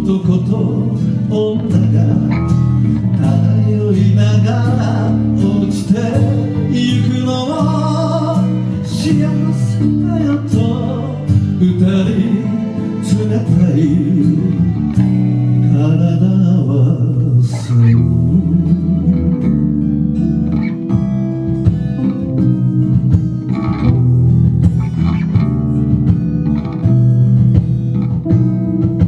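A live band playing a slow song: a voice singing over acoustic guitar and electric bass guitar.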